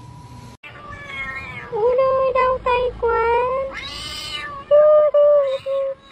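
Black-and-white domestic cat meowing loudly and insistently, a string of about eight drawn-out, wavering meows in quick succession, one of them breathy and hissing near the middle.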